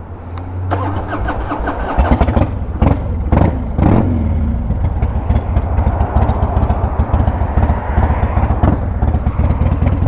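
Harley-Davidson CVO Wide Glide's V-twin engine being started: about two seconds of cranking, then it catches with a few quick revs and settles into a steady idle. The owner says it is starting up okay now after a few days of running, though it is still being tuned and stalls easily.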